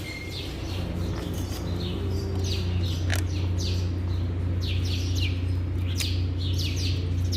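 Birds chirping over and over in short, quick calls that slide downward, over a steady low hum.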